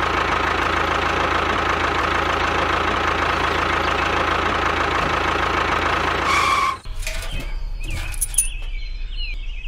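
A steady engine running sound for the toy tractor, which cuts off abruptly about seven seconds in. After that, a quieter low hum with a few faint chirps.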